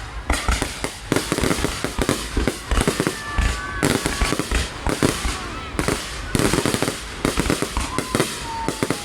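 Fireworks display: a dense, unbroken barrage of shell bursts and crackling, many sharp bangs every second.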